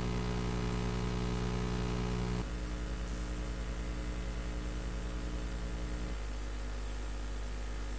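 A steady low drone of several held tones over a deeper hum, with some of the tones dropping out about two and a half seconds in and again about six seconds in.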